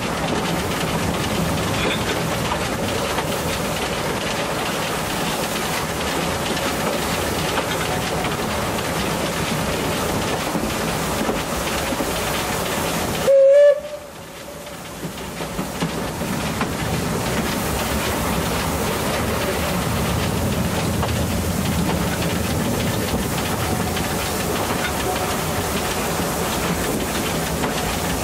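Steady running noise of a train hauled by the narrow-gauge steam locomotive ÖBB 298.52. About halfway through comes one short, loud whistle blast, after which the running sound drops sharply and builds back over a few seconds.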